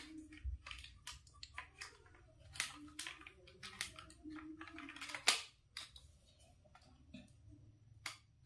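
Light clicks and knocks of a laptop motherboard and its plastic and metal parts being handled and pressed into the Lenovo IdeaPad 320's chassis, scattered throughout, with one sharper knock about five seconds in.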